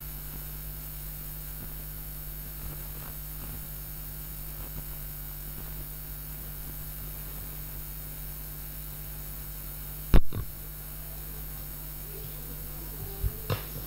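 Steady electrical mains hum on the audio line, with one sharp click about ten seconds in.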